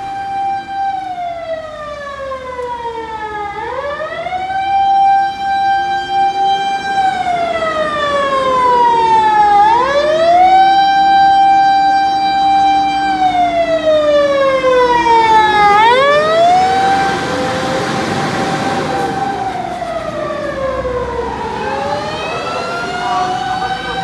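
Japanese fire engine's siren wailing on an emergency run: each cycle rises quickly, holds a high note for about three seconds, then slides slowly down, repeating about every six seconds, with a lower, slower motor-siren wail underneath. A rush of noise swells about two-thirds of the way through.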